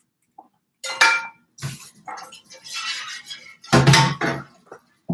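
A cooking pan being handled and washed up, clanking and clattering several separate times with short pauses between. The loudest knock comes about four seconds in.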